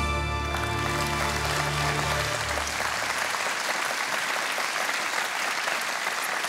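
Studio audience applauding over a short musical sting with a deep bass note; the music dies away after about three seconds while the applause carries on.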